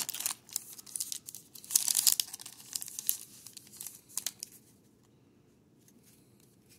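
Foil wrapper of a baseball card pack crinkling and tearing in the hands as the cards are pulled out, in irregular crackles for about four seconds before it stops.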